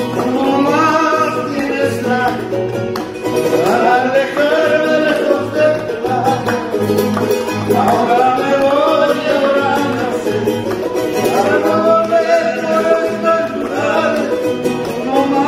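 Several voices singing an Andean folk song together over strummed charango and acoustic guitar, at a steady, lively pulse.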